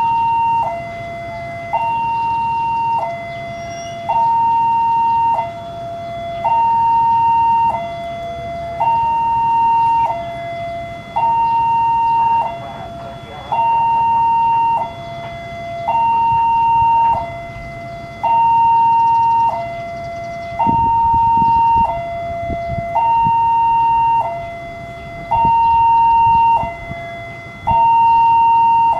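Railway level-crossing warning siren alternating steadily between a high and a low tone, each held a little over a second: the crossing's alarm for an approaching train.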